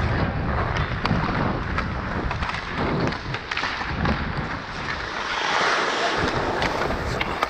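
Wind rushing over a GoPro's microphone as the skater moves at speed, with skate blades scraping the ice. A few sharp clicks of sticks and puck come in the second half.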